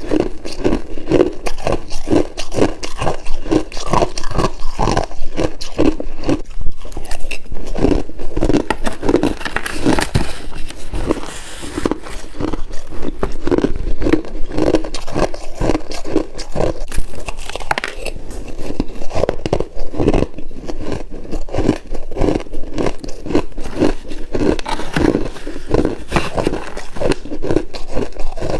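Freezer frost being bitten and chewed close to the microphone: continuous crackly crunching with heavier chews coming about twice a second.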